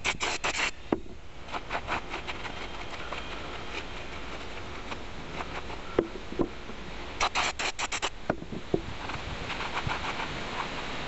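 An aerosol spray can gives two quick series of short spurts, one at the start and one about seven seconds in, onto the cast-iron parts of a hand-cranked grinder. Between them a cloth rag rubs and wipes the cast iron, with a few light knocks of the metal parts.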